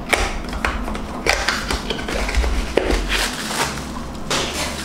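Cardboard box and plastic packaging handled during unboxing, with a run of irregular crackles and scrapes as the wrapping is pulled open.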